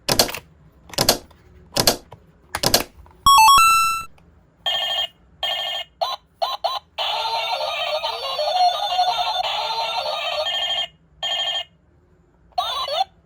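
A few sharp clicks, then a run of electronic beeps and a pulsing tone. These give way to a steady electronic ringing, like a phone ringtone, for about four seconds, with a short warble near the end.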